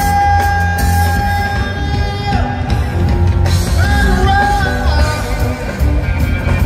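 A live reggae band plays over a heavy bass beat while the singer holds a long sung note, breaks off, then holds another higher note about three and a half seconds in.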